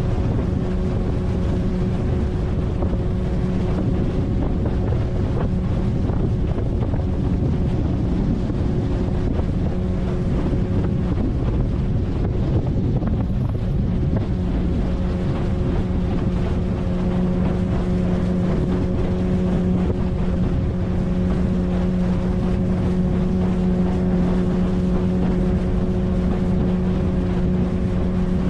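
A 9.8 hp outboard motor pushing an inflatable PVC boat, running at a steady, unchanging speed, with wind rushing over the microphone.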